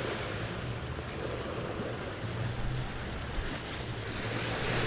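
Ocean waves washing on a shore, a steady, soft surf sound that swells slightly and eases, with a faint low hum underneath.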